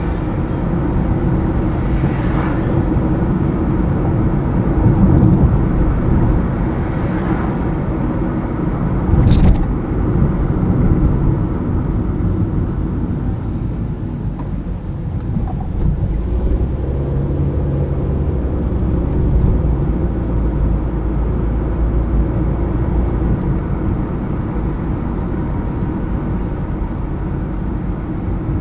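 Car driving on a highway: steady road and tyre noise with a low engine hum. There is a short knock about nine seconds in.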